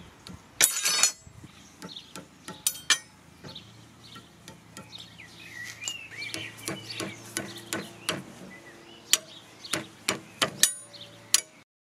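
A steel flat bar clacking and clinking against steel welding magnets as it is set on them and pulled off, in a series of sharp knocks, one ringing briefly about a second in. Birds chirp in the background through the middle.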